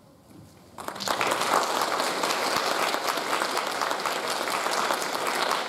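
A brief hush, then a hall audience breaks into applause just under a second in and keeps clapping steadily.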